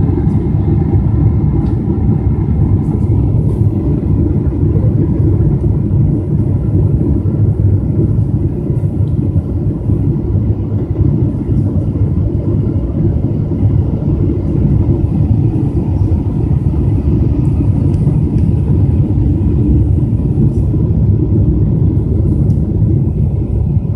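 Steady low roar of a Boeing 777-200's engines and airflow heard inside the passenger cabin on the descent to landing.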